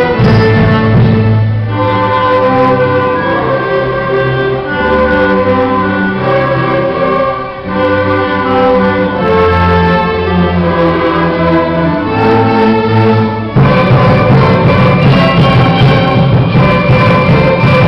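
Live ensemble playing a carnavalito, with bowed strings carrying a flowing melody over a steady low accompaniment. About 13 seconds in, the whole ensemble comes in fuller and louder.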